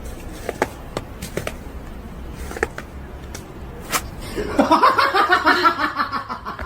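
A few sharp taps, then a person laughing loudly for about two seconds, starting a little after halfway through.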